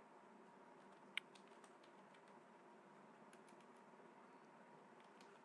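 Faint computer keyboard typing: a few soft, scattered key clicks, one a little sharper about a second in.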